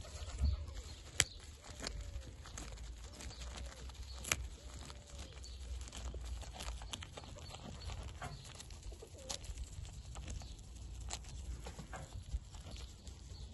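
Young goat biting and chewing a fresh chard leaf held in a hand: irregular crisp snapping and crunching clicks as the leaf is torn and chewed.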